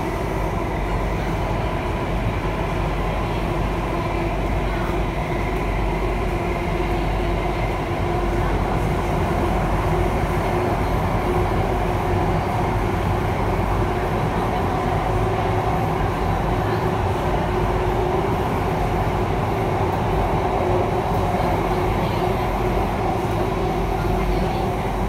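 Alstom Metropolis C830 metro train heard from inside the car as it runs through a tunnel: a steady, even rumble of wheels on rails with a few held tones over it.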